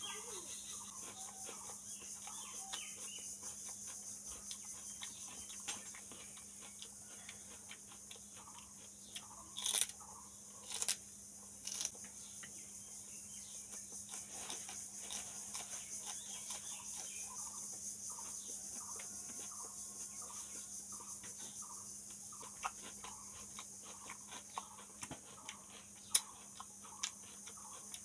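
Raw okra pods being bitten and chewed close to the microphone: crisp crunching clicks, the sharpest a few strokes about ten to twelve seconds in, over a steady background hiss and low hum.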